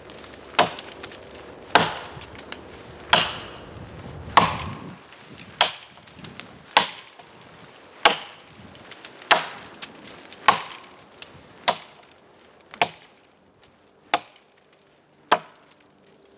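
Axe chopping a notch into an oak log: a steady series of sharp blows into the wood, about one every second and a bit.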